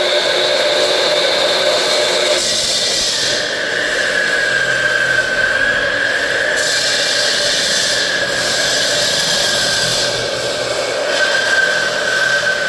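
Electric saw cutting into a wall, a loud steady high whine that wavers slightly in pitch as the blade bites.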